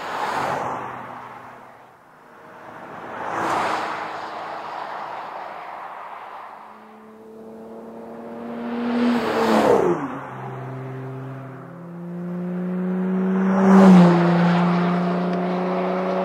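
A 2020 Jeep Gladiator's 3.6-litre V6 exhaust passing by about four times under acceleration, first on the stock exhaust and later through a Flowmaster American Thunder cat-back with a Super 44 muffler. Each pass swells with a rush of tyre and wind noise and the engine note, which drops in pitch as the truck goes by. The loudest, strongest engine note comes near the end.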